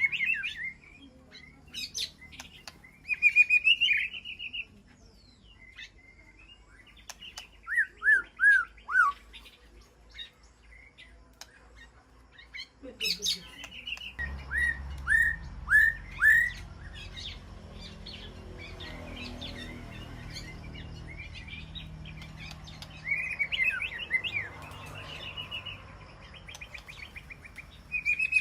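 White-rumped shama calling: short whistled phrases and chirps separated by pauses, with a run of four quick falling notes about eight seconds in and another about halfway through. A low steady rumble sits under the second half.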